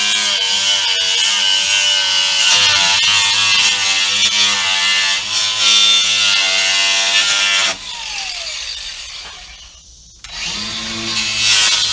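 Handheld die grinder running with its bit grinding on the sharp corners of wooden roost bars, rounding them off; the motor's whine wavers as the bit bites into the wood. About eight seconds in it is switched off and winds down with a falling whine, then starts again about two seconds later.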